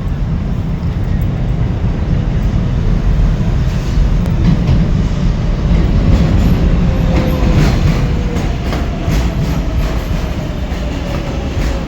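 New York City subway train (7 line) running on the rails: a loud, steady low rumble with clacking from the wheels, and a faint falling whine in the second half.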